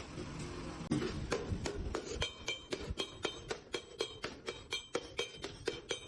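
Hammer striking galvanized sheet iron by hand, about four quick ringing blows a second, starting about a second in after a steady noise.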